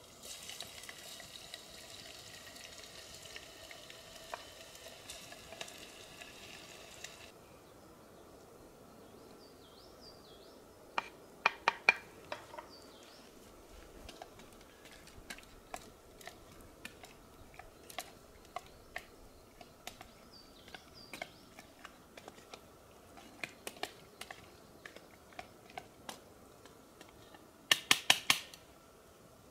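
A wooden spoon stirring food in a small metal camping pot, clicking and knocking against the metal: a quick cluster of knocks partway through, scattered clicks after, and a fast run of taps near the end. For the first several seconds a steady sizzling hiss is heard, which cuts off abruptly.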